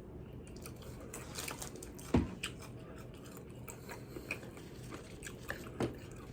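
A man chewing food close to the microphone, with soft scattered wet clicks of the mouth and a louder bite about two seconds in.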